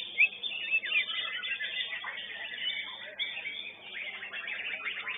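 White-rumped shamas (murai batu) singing together, a dense tangle of quick whistles, chirps and trills from several birds at once.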